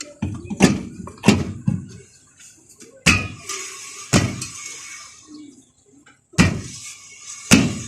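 A Suzuki Mehran's brake drum being knocked into place over freshly fitted brake shoes: about seven sharp metal knocks at uneven intervals, each with a short ring. The drum is seating past the shoe adjuster.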